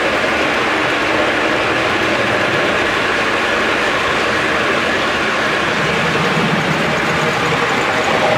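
S gauge Lionel American Flyer Blue Comet model train, a 4-6-2 steam engine with heavyweight passenger cars, running steadily on two-rail track: a continuous mechanical rolling noise from its wheels on the rails.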